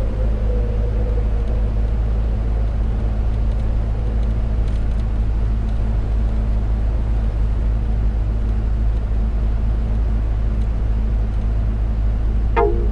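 Steady low rumble of a car driving on the road, with a constant hum underneath. Music comes in just before the end.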